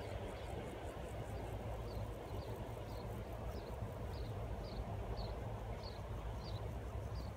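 Countryside ambience: a steady low rumble with a short, high, falling chirp repeating about twice a second, clearer from about two seconds in.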